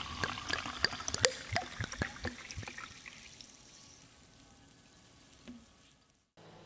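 Water dripping and trickling, with many irregular drops and plips over a soft hiss. It fades away over the second half and cuts to a brief silence near the end.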